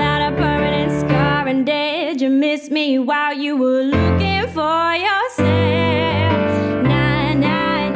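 Piano and female vocal ballad: a Yamaha piano plays sustained chords while a woman sings a sliding, ornamented line. The piano's low notes drop out for a moment in the middle, leaving the voice nearly alone, then return about four seconds in.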